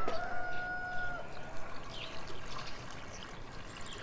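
Water trickling as it is poured from a bowl into a goatskin butter churn. A sheep bleats once over the first second.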